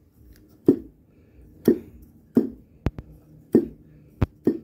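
Wooden propeller on a modified K&B .61 glow-fuel model airplane engine flipped over by hand with the engine not running: seven sharp knocks, each with a short low ring, as the prop is slapped against compression. The springy bounce is the sign of good compression.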